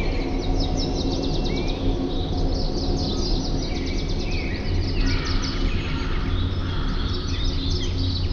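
Several birds chirping and singing at once, with quick repeated trills and short whistled notes, over a steady low rumble.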